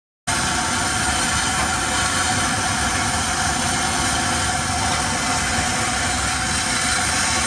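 A steady mechanical running noise that cuts in abruptly just after the start and holds at an even level.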